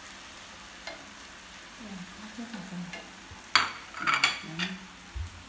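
Pork and fried tofu sizzling in a frying pan while being stirred with long cooking chopsticks. There is a steady frying hiss, with a few sharp clacks of the chopsticks against the pan, loudest about three and a half to four and a half seconds in.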